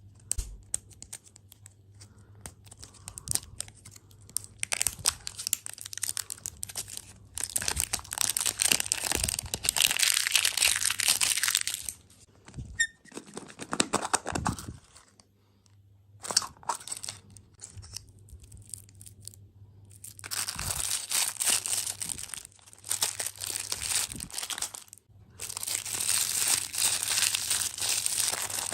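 Close-up crinkling and crunching of candy and its packaging, in several long bouts with short pauses between them.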